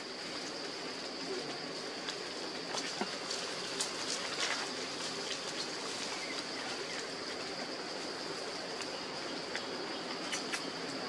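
Forest ambience: a steady high-pitched insect drone held on one pitch over an even hiss, with a few faint scattered clicks.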